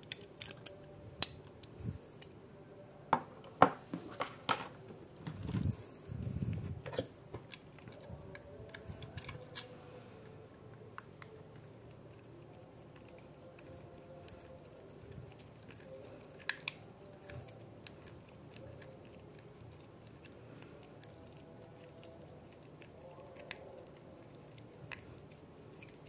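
Small clicks and taps of die-cast toy car parts and small tools being handled on a work surface. There is a cluster of sharp clicks in the first few seconds, a short low rustle around six seconds in, then only occasional faint ticks.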